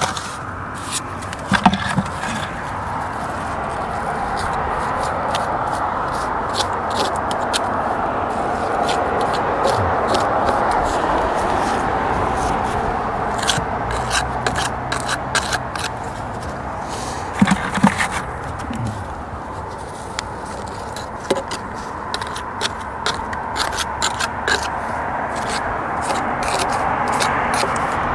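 A mason's trowel scraping and tapping mortar into the joints around a chimney's bricks, in a run of short scrapes and clicks. Under it runs a steady rush of background noise.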